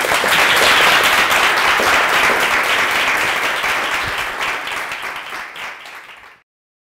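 Audience applauding, loudest about a second in and slowly dying down, then cut off abruptly near the end.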